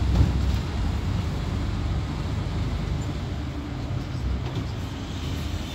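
A bus's engine and road noise heard from inside the passenger cabin, a steady low rumble, with a brief knock just after the start.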